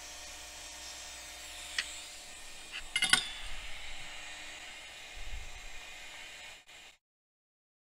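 Small metal tools clinking on an electronics repair bench over a steady hiss of bench equipment with faint high tones: a light clink about two seconds in, a louder cluster of clinks about three seconds in, and a dull low bump a little later. The sound cuts off suddenly near the end.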